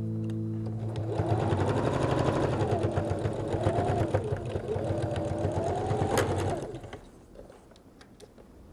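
Singer electric sewing machine stitching, a fast, even needle rattle with a motor whine that rises and falls in pitch as the speed changes. It stops about seven seconds in.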